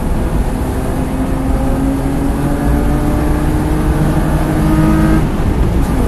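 BMW E36 engine heard from inside the cabin, pulling hard under acceleration with its pitch rising steadily, then a gear change about five seconds in, after which it pulls again at a lower pitch.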